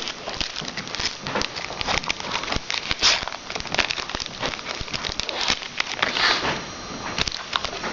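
A trading-card pack being torn open, its wrapper crinkling and crackling in a dense run of small clicks.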